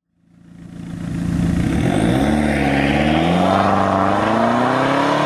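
Car engine revving, fading in over the first second and then climbing steadily in pitch.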